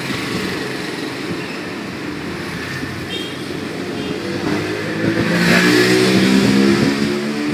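A motor vehicle's engine goes by, getting louder and a little higher in pitch from about four and a half seconds in, over a steady background hum.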